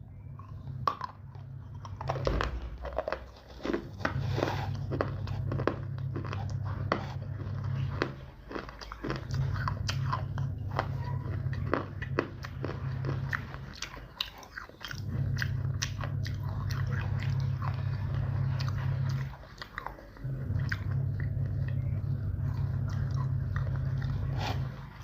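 Close-up biting and chewing of hard, dry pieces of baked eating clay, with a dense run of sharp crunches and crackles. A steady low hum comes and goes in long stretches.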